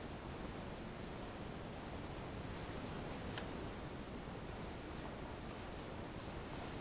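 Pencil drawing on paper: a series of short, faint strokes over a steady background hiss, with a small sharp tick about three and a half seconds in.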